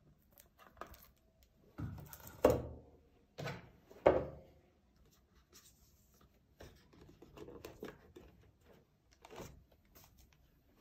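Hands unpacking and handling a boxed tablet: scattered rubbing and rustling of packaging broken by a few sharp knocks, the loudest about four seconds in.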